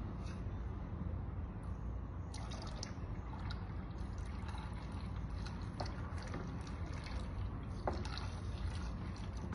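Dissolved caustic soda (lye) solution being poured slowly in a trickle into a large batch of used frying oil for soap. From about two seconds in come many small splashing clicks and crackles, over a steady low rumble.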